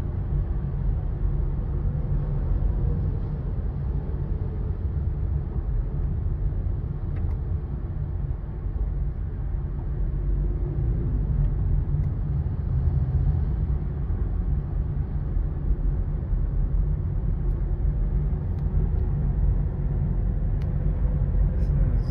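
Steady low rumble of a car driving on a highway, heard from inside the cabin: road, tyre and engine noise with no sharp events.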